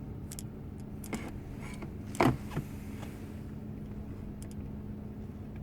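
A few light clicks and knocks from handling a melted laptop charger plug, with the loudest knock about two seconds in, over a steady low hum.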